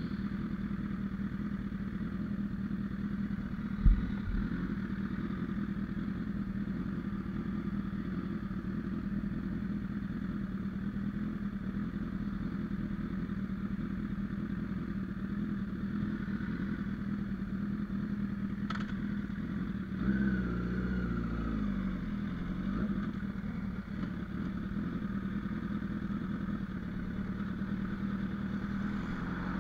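Honda CBR1000RR Fireblade's inline-four engine idling steadily at a standstill, with a single sharp thump about four seconds in. From about twenty seconds in, the engine note rises and falls as the bike is throttled and moves off at low speed.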